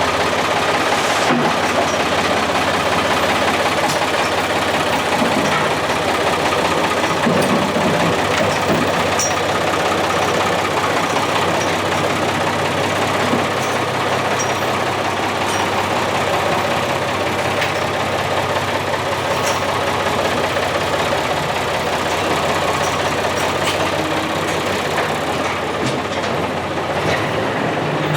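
Case tractor's engine running steadily.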